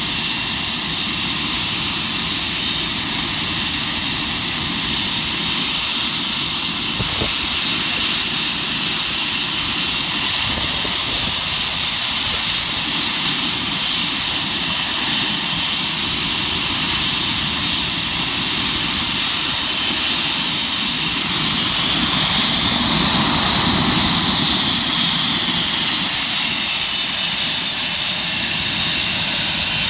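Panavia Tornado GR4's twin Rolls-Royce RB199 turbofans running with a steady high whine and rumble. About two-thirds of the way through, the whine rises in pitch and then falls back.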